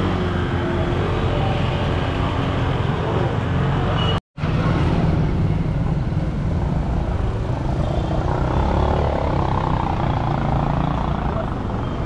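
Town street traffic, mostly motorcycles running and going by, a steady mix of engine and road noise. The sound cuts out completely for a moment just after four seconds in.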